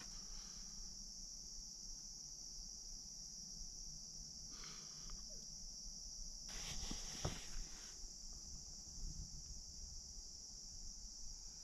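Steady high-pitched chorus of insects, crickets by their sound, running faint and unbroken. Two short rustles about halfway through, the second with a sharp knock.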